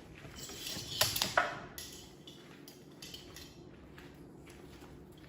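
Clatter of hard objects being handled: a few sharp clicks and knocks about a second in, then a few fainter ones.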